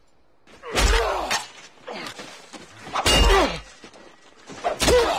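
Sword-fight sound from a film soundtrack: three short bursts of heavy thuds and blows with men's strained cries falling in pitch, about a second in, about three seconds in and near the end.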